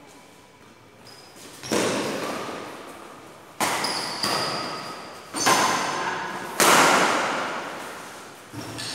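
Badminton rackets striking a shuttlecock during a doubles rally: four sharp hits spaced one to two seconds apart, each echoing in a large hall.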